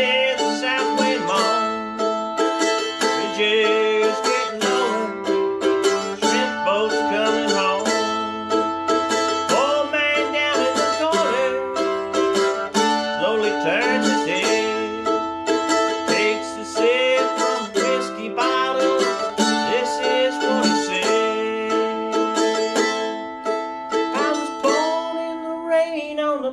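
Mandolin playing an instrumental passage of a song, quick picked notes over sustained tones.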